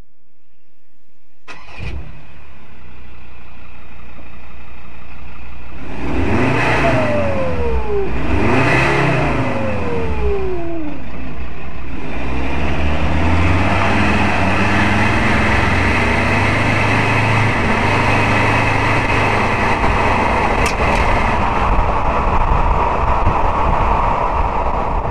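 Ford Ranger 3.2-litre five-cylinder turbo-diesel heard at the tailpipe of a 2¾-inch mandrel-bent stainless DPF-back exhaust with the standard resonator. It starts about a second and a half in, idles, is revved twice with the pitch rising and falling back, then runs steadily at a louder note from about halfway through.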